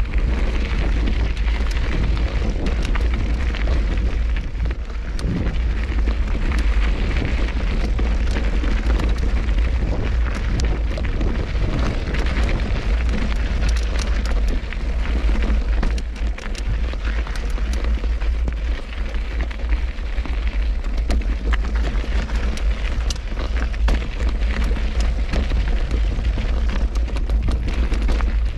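Wind buffeting a helmet-mounted action camera's microphone while riding an off-road bike over a loose, rocky trail: a steady deep rumble, with the tyres crunching and clicking over stones throughout.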